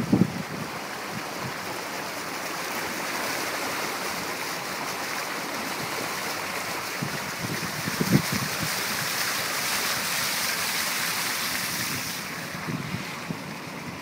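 Steady watery hiss of car tyres rolling on a rain-soaked, partly flooded road. The hiss eases a couple of seconds before the end, with a brief low thump about eight seconds in.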